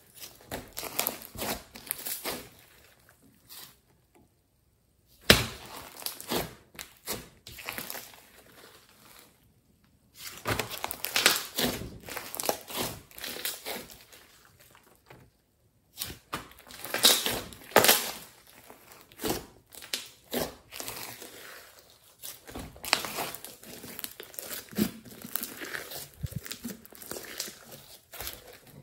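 Thick pink slime mixed with clay being squished, kneaded and stretched by hand: irregular sticky crackles and pops as the slime is pressed and pulled apart. Twice it falls silent briefly.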